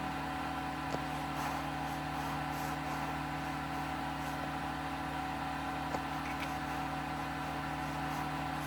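Steady background hum with several steady tones, unchanging throughout, with two faint ticks about a second in and near six seconds in.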